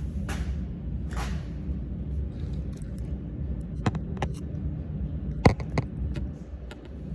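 Metal pieces handled and set down for welding, with a few sharp clinks and knocks (the loudest about five and a half seconds in) and soft scraping over a steady low hum.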